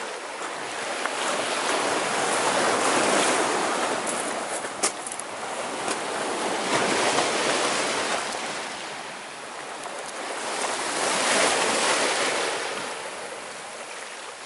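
Sea waves washing in over a rocky, pebbly shore, the surf swelling and falling back every four to five seconds. There is a brief sharp click about five seconds in.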